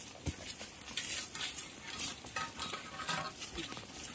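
Rustling and crackling of several people walking in sandals along an overgrown path, feet scuffing the ground and legs brushing through leafy plants, with many small crackles and clicks.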